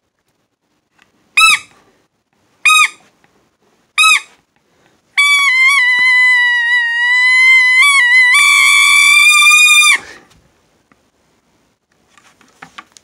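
Trumpet playing high notes: three short blips about a second and a quarter apart, then a long wavering held note that steps up a little and gets louder about three seconds in, before cutting off suddenly. A few faint rustles near the end.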